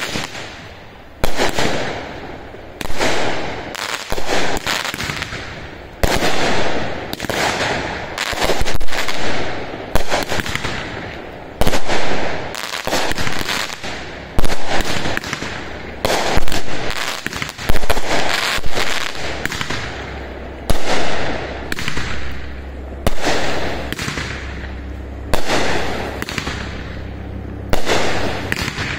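Aerial fireworks shells bursting one after another, a sharp bang every second or two, each one trailing off.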